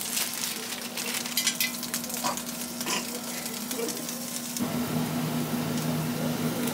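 Bell peppers and broccoli sizzling in a frying pan as a spatula stirs them: many small crackles over a steady low hum. A little past the middle a second, lower hum joins in.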